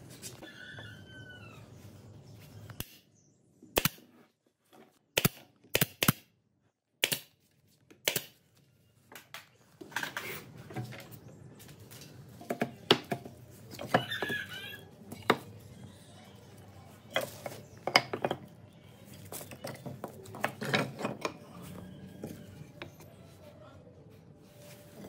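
Irregular sharp knocks and clinks of tools and wood being handled on a workbench, spaced out at first with near silence between them, then coming more often over a low hum.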